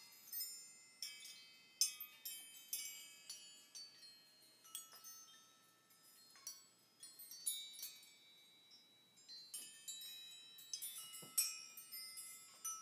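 Strands of hanging scrap-metal pieces (washers, gears and discs on chains) clinking against one another like wind chimes. The strikes come at irregular intervals, often several close together, each leaving a ringing metallic tone.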